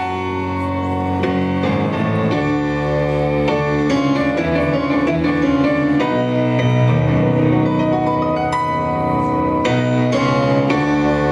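Music played back for a dance routine, led by piano, with notes and chords changing about every half second at a steady loudness.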